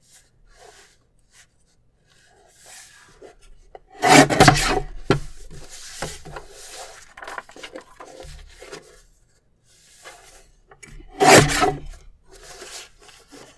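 Paper trimmer cutting through a stack of printed planner sheets twice, about seven seconds apart, each cut lasting about a second. Between the cuts, fainter rustling and sliding of paper on the trimmer bed as the sheets are lined up.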